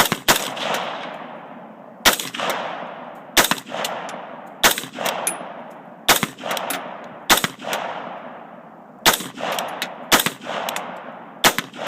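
Colt 6900 AR-15 carbine firing .223 rounds semi-automatically: about nine single shots at an uneven pace, one every second and a half or so. Each shot is followed by a long fading echo, and several are followed by a fainter second crack.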